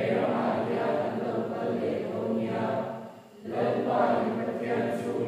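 A congregation of men and women singing together in unison, with a short break between phrases a little past three seconds in.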